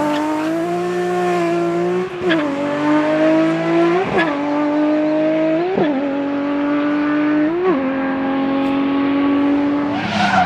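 Rally car engine pulling hard through four upshifts, the engine note climbing and dropping sharply at each gear change, roughly every two seconds, then holding steady before its pitch falls near the end.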